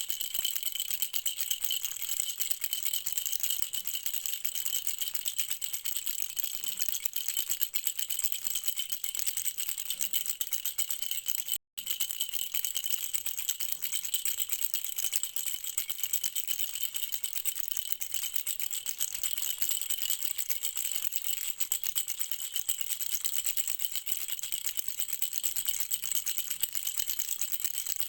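Baby rattle shaken without pause, a fast, dense, mostly high-pitched rattling. It cuts out for a split second about twelve seconds in, then carries on.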